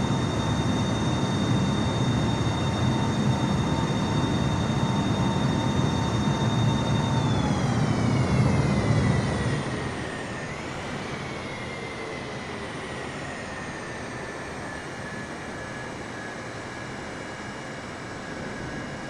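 Jet airliner's engines passing close: a steady high whine over a heavy rumble, then about seven seconds in the whine slides down in pitch as the aircraft goes by, and the rumble falls away, leaving a fainter receding hum.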